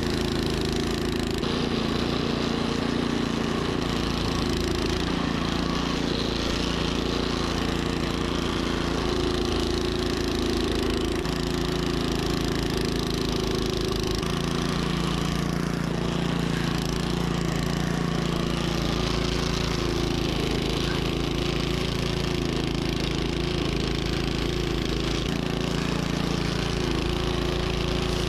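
Troy-Bilt snowblower engine running steadily, its pitch shifting slightly a few times.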